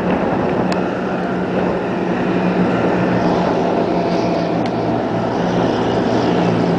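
A steady engine drone under a rushing noise of wind on the microphone, with a faint click or two.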